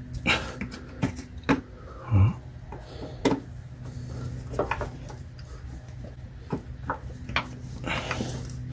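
Flathead screwdriver prying and scraping at plastic push-pin fasteners in a plastic splash shield: scattered clicks, scrapes and taps, with a louder dull knock about two seconds in. A steady low hum runs underneath.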